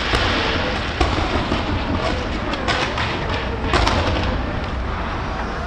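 Fireworks going off: several sharp bangs over a steady low rumble, with a cluster of bangs about three to four seconds in.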